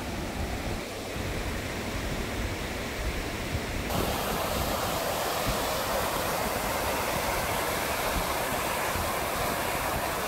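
Mountain stream rushing over granite rocks and boulders, a steady hiss of running water, with wind rumbling on the microphone. About four seconds in the sound turns suddenly louder and brighter.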